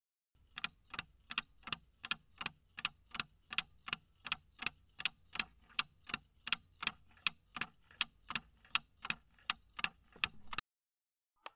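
Clock-ticking sound effect for a countdown timer, about three even ticks a second, stopping suddenly as the countdown runs out. Two brief clicks follow near the end.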